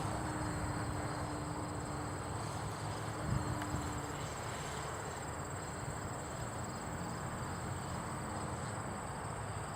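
Insects trilling steadily in high continuous chirring, over low wind rumble on the microphone. A faint steady hum from the RC flying wing's motor in the distance fades away over the first few seconds.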